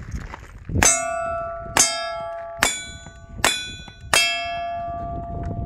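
Five single-action revolver shots, a little under a second apart, each followed by the clear ring of a hit steel plate target. The last ring carries on for over a second.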